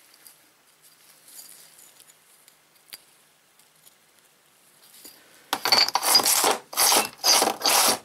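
Hand tool scraping grooves into a fired-clay brick for a furnace heating coil. About five short scraping strokes, roughly two a second, start about five and a half seconds in, after a few faint taps.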